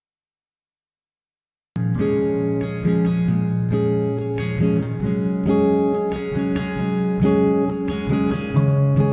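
Background music: acoustic guitar, strummed and plucked, starting abruptly about two seconds in after dead silence.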